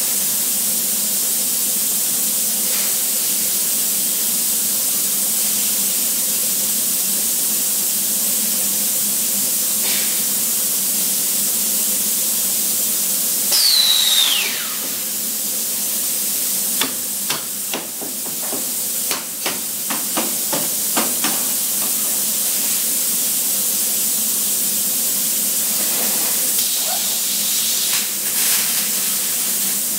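Steady hiss of factory machinery. Partway through there is a brief falling whistle, followed by a run of sharp metallic clicks and knocks.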